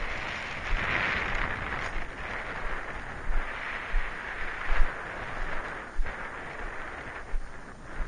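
Wind buffeting the microphone of a head-worn camera: a steady rushing noise with irregular low thumps and swells as gusts hit.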